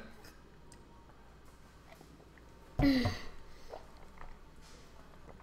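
A child drinking from a bottle: faint swallowing and mouth clicks, then about three seconds in a brief vocal sound with falling pitch, followed by soft lip and mouth noises.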